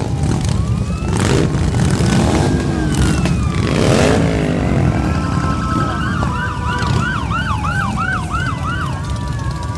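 A column of Harley-Davidson motorcycles riding past, their engines a steady deep rumble, with one revving up and falling away near the middle. From about five seconds in a siren yelps, rising and falling about three times a second, until near the end.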